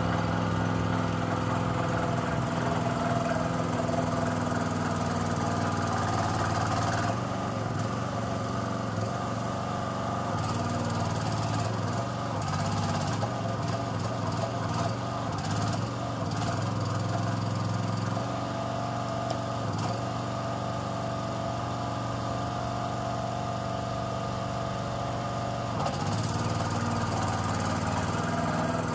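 Engine of a tracked mini dumper running steadily as the machine crawls across mud. It gets a little quieter about a quarter of the way in and louder again near the end.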